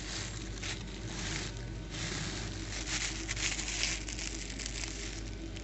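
Irregular crinkling and rustling handling noise over a steady low hum.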